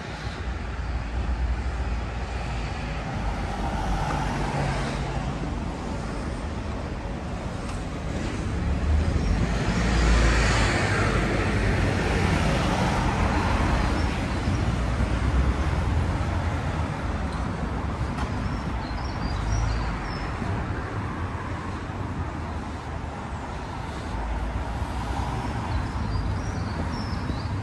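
Street traffic: cars running along the road, with one passing close about ten seconds in.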